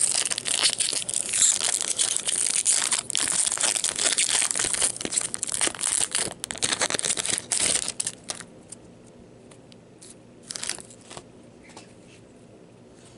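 Foil wrapper of a Topps 2017 baseball card pack crinkling and tearing as it is pulled open by hand, dense and loud for about eight seconds. It then goes quiet apart from a short rustle of handled cards.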